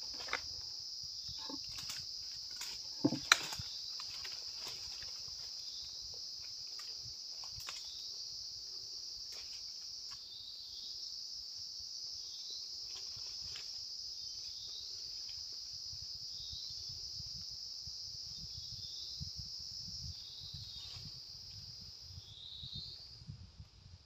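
Insects droning steadily at a high pitch in forest, with short falling chirps repeating from about ten seconds in; the drone fades out near the end. A couple of sharp snaps stand out about three seconds in.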